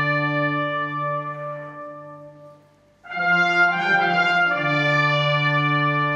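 Trumpet and trombone playing long held notes together. The chord fades away to near silence about halfway through, then the brass comes straight back in on a new held chord.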